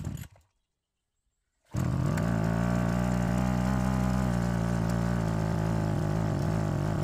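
Backpack brush cutter engine starting up about two seconds in after a short burst of noise, then running steadily at an even pitch.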